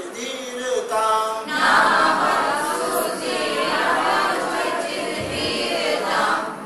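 Unaccompanied singing: a single voice sings a short phrase, then a class of trainees joins in unison from about a second and a half in, in a Sanskrit song.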